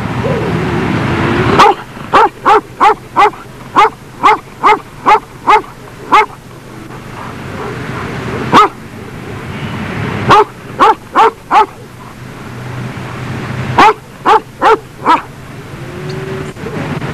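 Caucasian shepherd dog barking in runs of quick, sharp barks, about three a second. There is a long run of about ten barks a couple of seconds in, a single bark in the middle, and two shorter runs of four later on.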